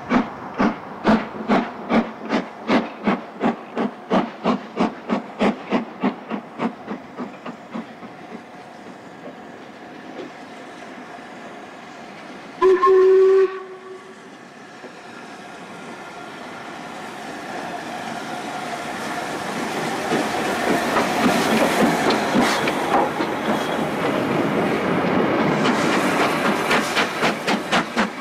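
LMS Black Five 4-6-0 steam locomotive 44932 working along the line. Its exhaust beats come about three a second and die away over the first several seconds, and a short, loud whistle blast sounds about halfway through. The engine then comes close with a rising hiss and wheel noise, and the exhaust beats start again near the end.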